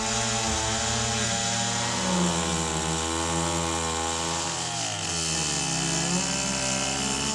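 Chainsaw running and cutting into an elm tree, its engine pitch sagging under load about four and a half seconds in, then climbing back.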